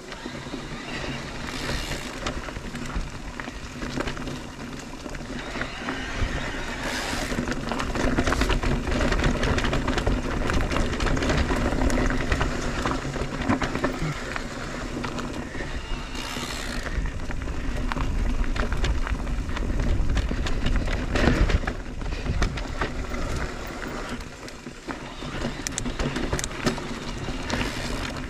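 Mondraker Crafty Carbon R electric mountain bike ridden along a dirt trail: continuous tyre rumble and rattling of the bike, with wind buffeting the microphone and a few passing surges of hiss.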